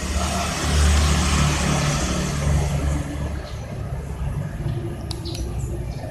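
A motor vehicle passing, a low rumble and rushing noise that swells about a second in and fades over the next two seconds. A few short bird chirps come near the end.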